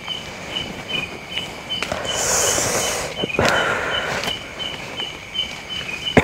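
Footsteps and rustling through leaf litter and bamboo undergrowth, with irregular knocks and two louder bursts of rustling near the middle. A faint high chirp repeats steadily, about two to three times a second, throughout.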